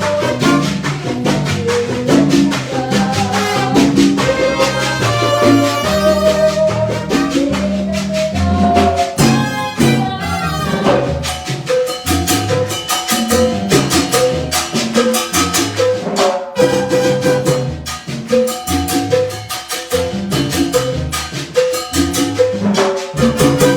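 Salsa band playing live: a steady dance rhythm of bass and percussion under a short melodic figure repeated again and again.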